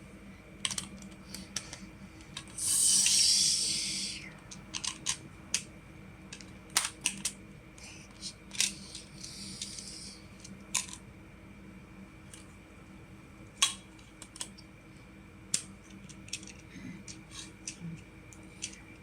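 Plastic magnetic building tiles clicking and clacking as they are handled, snapped together and set down, with a louder rustling hiss lasting about a second and a half near the three-second mark.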